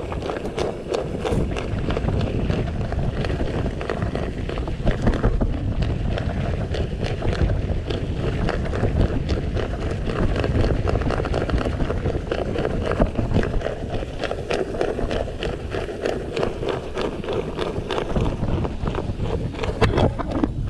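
Mountain bike rolling fast down a rough dirt track: tyres crunching over loose dirt and stones and the bike rattling, with many sharp clicks, over a steady low rumble of wind buffeting the microphone.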